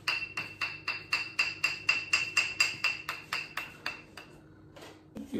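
A quick, even run of light taps, about five a second for some four seconds, with a high ringing tone under them, then it stops.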